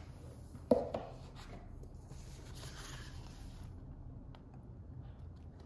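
Packaging being handled during an unboxing: one sharp knock under a second in, then soft scraping and rustling.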